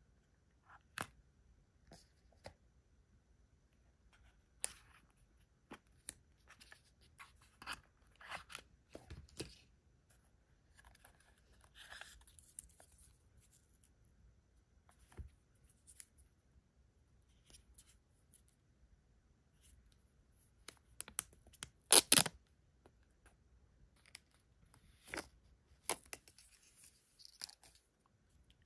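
Apple AirPods Pro cardboard box and its paper packaging being opened and handled: scattered light clicks and short rustles. The loudest is a quick burst of crackles about two-thirds of the way through.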